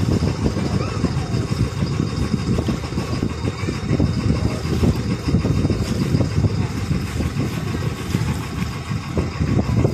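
Motorboat engine running steadily, heard from on board while under way.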